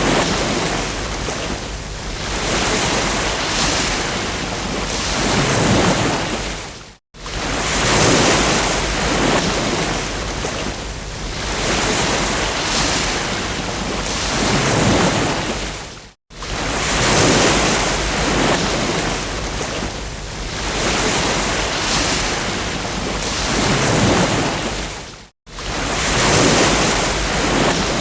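Ocean waves breaking and washing up on a beach, the surf swelling and ebbing again and again. The sound cuts out for an instant three times, about nine seconds apart.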